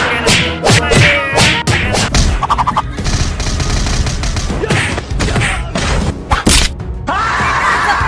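Slapstick punch and whack sound effects, several sharp hits a second near the start and another run past the middle, mixed with wordless yelling and background music.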